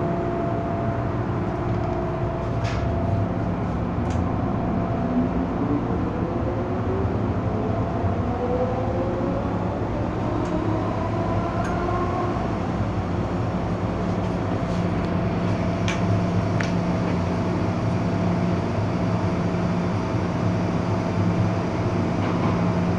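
MTR M-Train electric multiple unit accelerating away from a station, heard from inside the carriage: a traction whine rises steadily in pitch from about five seconds in until about twelve seconds in, over the train's steady running rumble and hum.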